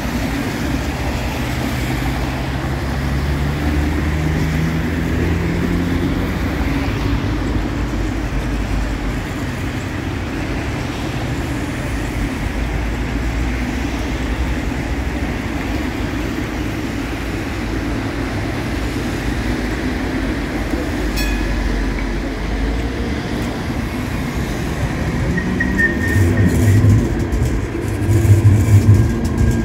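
Street traffic with cars passing, one engine rising in pitch as it speeds up in the first few seconds. Near the end a light-rail train runs by alongside, getting louder, with rumbling wheels on the rails.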